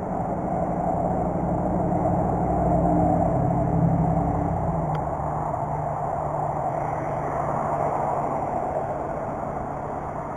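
Motor vehicle driving: engine drone with road and tyre noise, the engine pitch rising slightly a few seconds in, then running steady.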